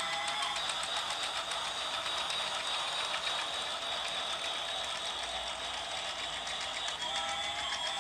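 Battery-powered toy train running: its small motor and plastic gears whir steadily with a fast rattling tick and a high whine. The toy's tinny electronic tune plays at the very start and comes back near the end.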